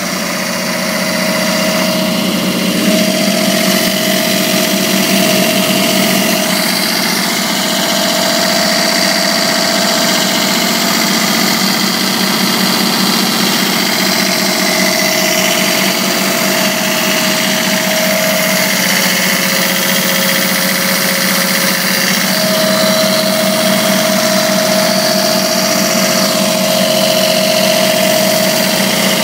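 Kaeser M26 portable air compressor's three-cylinder Kubota diesel engine running steadily, with a higher steady whine over the engine note that drops out briefly now and then.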